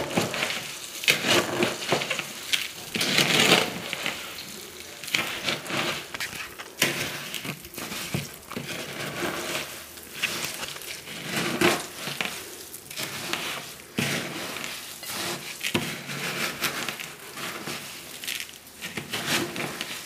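Wooden spoon stirring dry Coco Pops in a bowl: the puffed rice cereal crackles and rustles in irregular strokes while melted copha is poured in.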